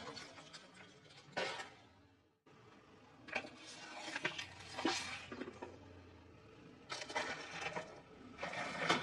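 A car tyre rolling over and crushing objects: cracking and crunching of plastic in several separate bursts, with a brief dropout about two and a half seconds in.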